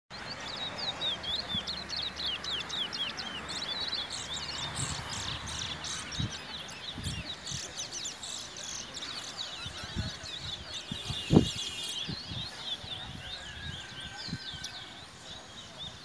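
Trinidad bullfinch, a small seed finch in a cage, singing a rapid, continuous twittering song of quick chirping notes that thins out near the end. Low thumps are heard underneath, the loudest a single sharp thump about 11 seconds in.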